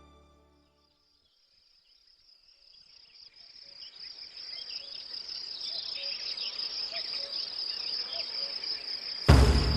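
Crickets chirping: a steady high trill that fades in after a couple of seconds of near silence and grows louder. A loud burst of music cuts in near the end.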